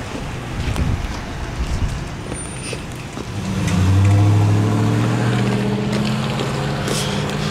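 Utility truck engine running close by, coming in about three seconds in as a low hum that is loudest a second later and then sags slightly in pitch.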